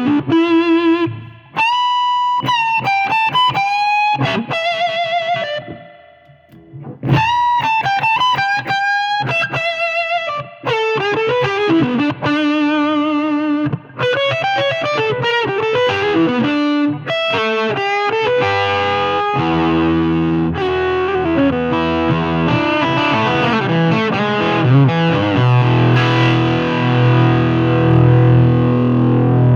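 Electric guitar through the Vitamin C (C6H8O6) fuzz pedal: single-note lead lines with vibrato and slides, then about two-thirds of the way in, thick sustained fuzzed chords with heavy low notes.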